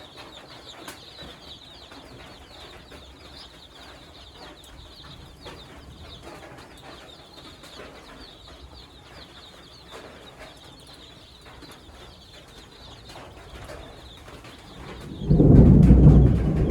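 Day-old white layer chicks peeping together, a dense, continuous chorus of short, high, falling cheeps. About fifteen seconds in, a sudden loud low rumble starts and covers them.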